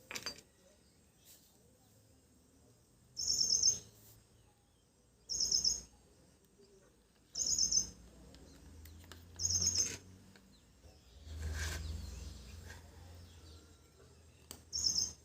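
A bird calling: five short bursts of quick high chirps, roughly two seconds apart. A low hum comes in underneath about halfway through.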